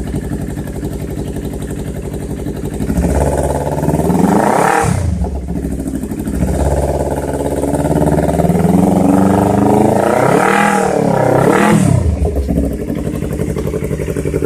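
Yamaha R25/R3 parallel-twin engine through an aftermarket Proliner exhaust with no baffle, idling and then revved: one rev rising and falling between about 3 and 6 seconds, then a longer rise with two blips near the end before it drops back to idle.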